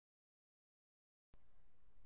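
Near silence: dead quiet, then, just over halfway through, faint background hiss with a thin, steady, high-pitched whine.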